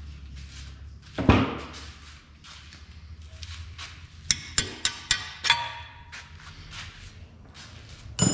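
Metal tools and hardware knocking and clinking at a car's front suspension while the lower ball joint nut and bolt come out. One heavy knock comes about a second in, then a quick run of sharp ringing clinks around the middle, and another knock at the end.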